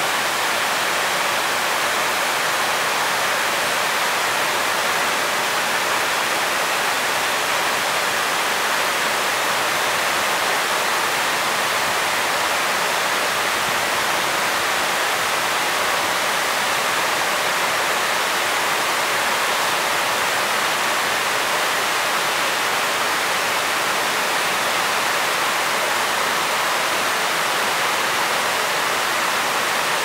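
Waterfall: water cascading over a broad, low rock ledge, a steady, unbroken rushing.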